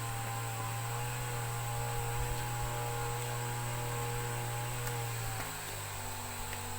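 A steady low motor hum with a few fainter tones above it, dropping slightly in pitch and level about five seconds in.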